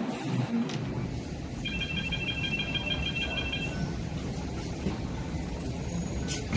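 Light rail vehicle's door warning beeper sounding a rapid run of high electronic beeps, about five a second, for roughly two seconds, over the steady low rumble of the standing tram.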